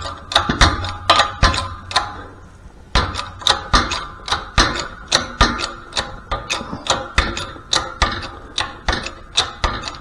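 Shop press being worked to push an inner bearing out of a Harley five-speed main drive gear: a run of sharp metallic clicks, about three a second, thinning out briefly about two seconds in.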